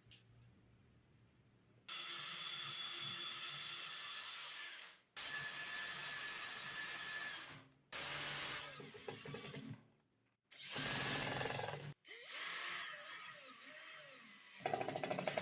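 Power tool working wood in five steady runs of a few seconds each, each starting and stopping abruptly, after about two seconds of quiet.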